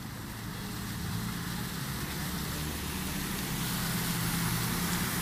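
Motorcycles riding through ankle-deep floodwater, their engines running under the hiss of splashing water. The sound grows louder as they come near.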